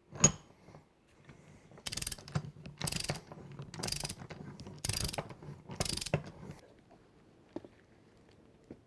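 Ratchet wrench on a large jam nut, driving a 2-inch six-point socket through stacked adapters to torque it to 120 ft-lb: the pawl clicks in five quick runs about a second apart, between pulls on the handle. There is a sharp click just after the start and another just after the last run.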